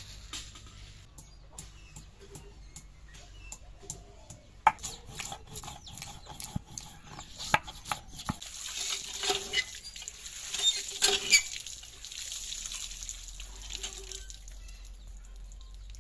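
Ginger and cumin being ground wet on a flat stone slab with a stone muller: rasping, crushing stone-on-stone strokes with sharp clicks, busiest and loudest in the middle stretch.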